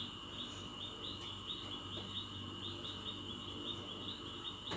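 Soft nature ambience: a steady high trill with quick, evenly repeated chirps over it, about four or five a second.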